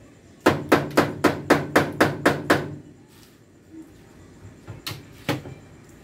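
A quick run of eight sharp strikes on a hard object, about four a second, then two more a couple of seconds later.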